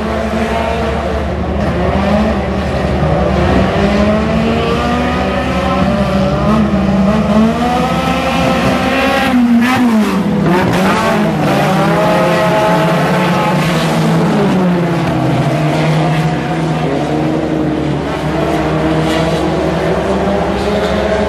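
Four-cylinder front-wheel-drive dirt-track race cars racing past, their engines rising and falling in pitch. One car passes close about ten seconds in, its engine dropping sharply in pitch as it goes by.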